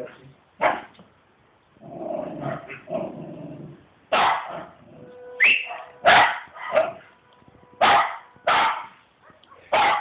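West Highland white terrier barking, about nine short, sharp barks in irregular bursts, with a lower, rougher stretch between about two and three and a half seconds in.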